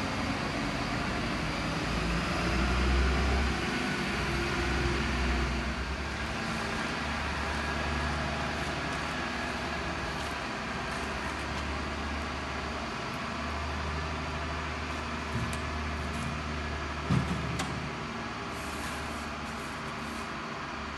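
Heavy diesel truck engine running at low speed, a steady low rumble that swells and eases as the truck moves, with a few short knocks about seventeen seconds in.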